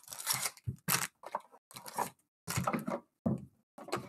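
A cardboard trading-card hobby box opened and its foil-wrapped packs pulled out and set down in stacks: a run of short tearing and crinkling rustles with brief gaps between them.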